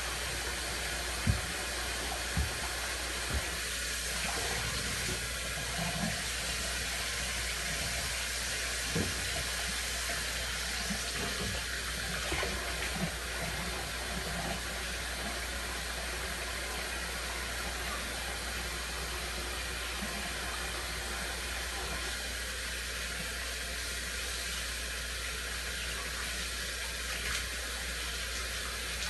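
Water running steadily from a kitchen tap into a sink while dishes are washed by hand, with a few short clinks and knocks of dishes, a handful in the first few seconds and more around the middle.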